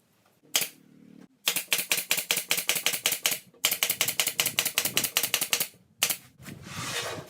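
Rapid, even mechanical ratcheting clicks, about eight a second, in two runs of roughly two seconds each with a brief break between. A short low hum comes just before the clicking.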